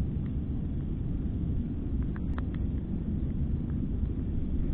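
Steady low rumble of wind buffeting an action camera's microphone on open ice, with a few faint clicks about two seconds in.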